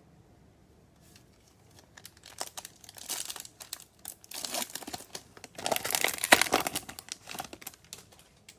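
Trading-card pack wrapper crinkling and tearing as it is opened by hand, in crackly bursts that begin about two seconds in and are loudest near the middle.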